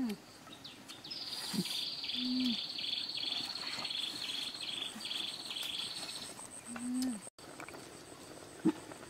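An insect chirping in the forest: a high buzz beaten into a steady run of about two pulses a second for several seconds, over a faint constant high whine. A few short low hums come in between, and there is a single sharp click near the end.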